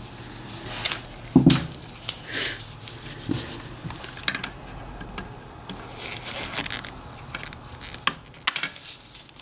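Gloved hands and a hand tool working at a small coolant hose on a Subaru EJ25D engine's throttle body, trying to free it: scattered clicks, scrapes and rustling, with a louder knock about a second and a half in.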